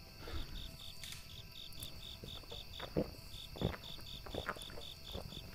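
Crickets chirping in a steady, even pulse about four times a second. Several short knocks or pops sound over it, the loudest about halfway through.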